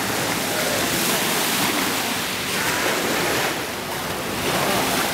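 Ocean surf washing in a steady rush that swells and eases a few times.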